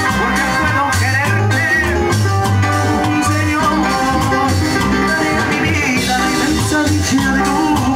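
Live grupera band playing an upbeat dance number: a man sings into a microphone over electronic keyboards, a steady bass line and a drum kit.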